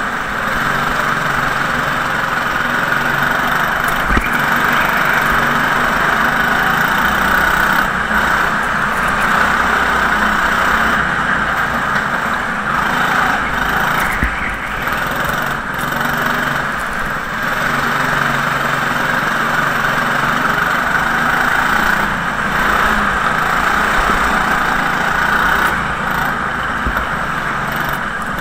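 Go-kart's small petrol engine running at speed, heard onboard, its pitch easing and rising again through the corners over a steady hiss.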